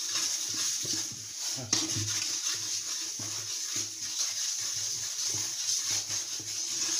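Butter-and-flour roux sizzling in a nonstick frying pan as a wooden spatula stirs it round, with a soft scrape of the spatula against the pan at each stroke.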